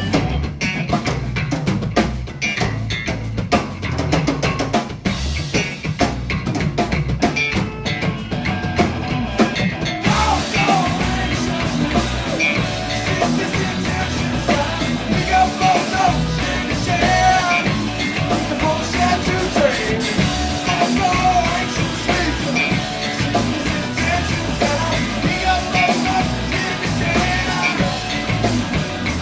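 Live rock band playing, with the drum kit to the fore for the first ten seconds or so. About ten seconds in, the band comes in fuller and brighter, with pitched melodic lines over the drums.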